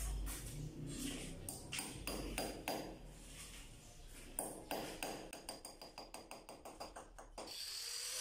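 A hammer tapping at the foot of a concrete column to fix a nylon string line for laying floor tiles. A few separate strikes come first, then a quick run of light taps, about five a second. A brief rasping noise comes near the end.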